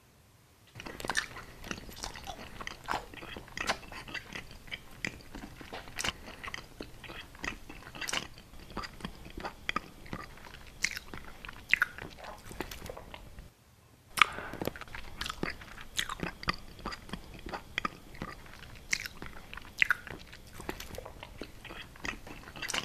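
Close-miked ASMR eating sounds: biting and chewing, with many sharp crunchy clicks and wet mouth noises. There is a brief break about halfway through.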